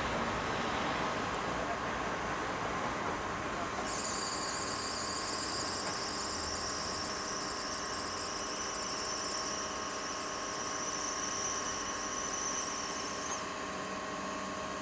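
SNCF 241 P 17 steam locomotive standing under steam, with a steady hiss of escaping steam and a low hum. About four seconds in, a shrill high whistling hiss joins in, holds steady, then cuts off sharply shortly before the end.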